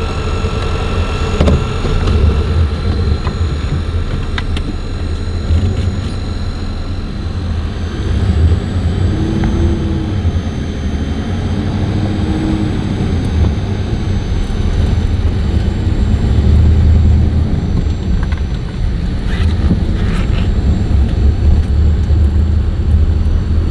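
1953 Studebaker Commander's V8 engine and road noise heard from inside the cabin while driving, a low rumble that swells and eases as the car pulls along.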